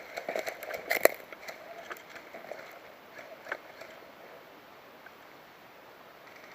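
Irregular crunching and clicking, busiest in the first two seconds with one sharp click about a second in, then fading to a faint hiss broken by an odd click.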